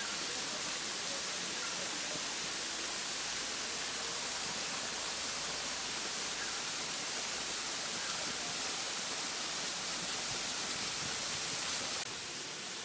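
Steady rushing noise of a low-flow waterfall and the water running over the rocks below it. The noise steps down to a quieter level near the end.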